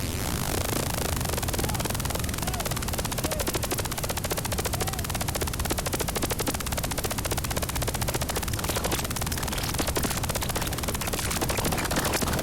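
Synthesized and musique concrète electronic sound: a dense, noisy texture made of a rapid, even stream of clicks over a low rumble.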